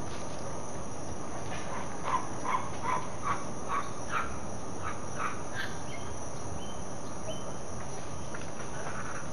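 A series of about ten short animal calls, about two and a half a second, fading and creeping up in pitch as they go, over a steady noise background.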